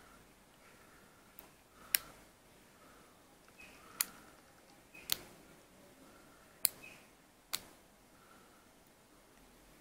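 Sharp metallic clicks from a metal rebuildable tank atomizer being turned and handled in the fingers, five clicks spread unevenly over several seconds.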